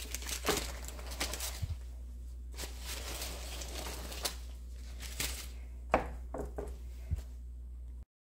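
Baking paper rustling and crinkling as it is peeled off a sheet of puff pastry, with a sharp tap about six seconds in, over a low steady hum.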